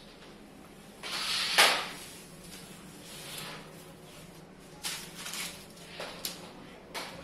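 Double-sided tape and a plastic strip being handled. About a second in there is a sharp rip lasting under a second, then scattered clicks and rustles.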